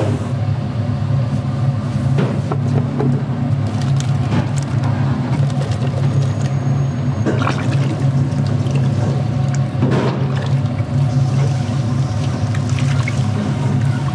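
Steady low mechanical hum with scattered clicks and clinks over it.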